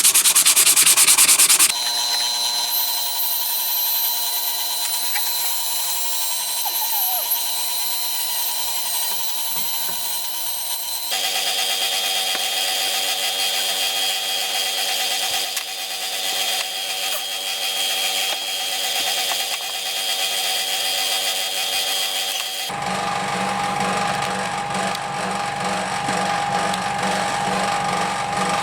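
Small power tool running steadily as it sands down dried Bondo plastic metal filler on a metal socket-set case, a constant motor whine with a rough sanding hiss. Its pitch jumps suddenly a few times, with a louder rougher stretch at the start.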